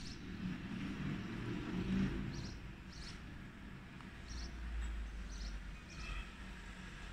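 Outdoor ambience: short, high bird chirps every second or so over a steady low rumble.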